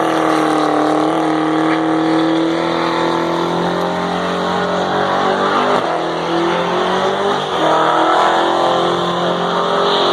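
Car engine held at high revs, its pitch wavering and dipping briefly twice, over tire noise: a long drag-strip burnout that leaves onlookers joking the tires and rims are warm.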